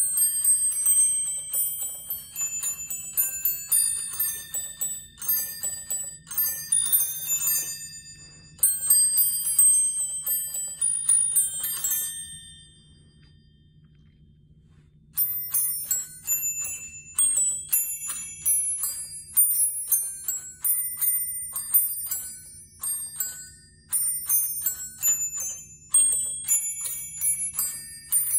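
Musical Christmas bell chime, a hanging string of small brass bells struck in turn to play a carol melody. The tune stops about twelve seconds in, and after a pause of about three seconds the next carol begins. A low steady hum runs underneath.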